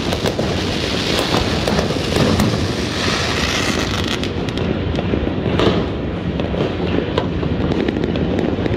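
Many fireworks going off at once: a dense, unbroken din of overlapping bangs and crackling pops.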